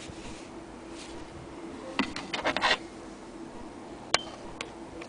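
Handling noise as a piece of sewn denim is held up close to the camera: a short rustle with several clicks about two seconds in, then one sharp click a couple of seconds later, over a faint steady hum.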